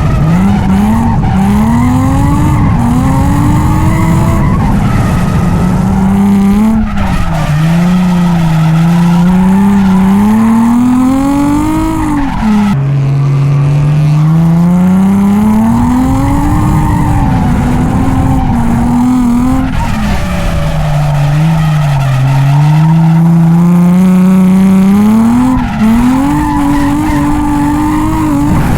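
Nissan 350Z's V6 engine being driven hard through drift slides, the revs climbing and dropping again and again every few seconds, with tyres sliding on the wet track underneath.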